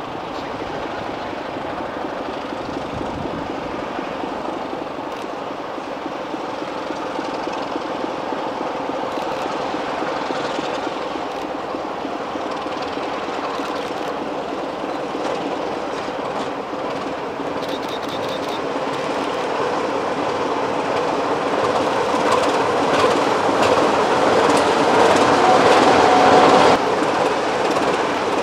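Diesel locomotive's engine running steadily as it hauls a train of coaches slowly past, with wheels clattering over the rails. The engine grows louder towards the end, then drops off abruptly shortly before the end.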